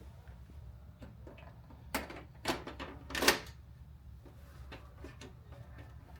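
A few short knocks and scrapes of objects being handled, the loudest about three seconds in, over a steady low hum.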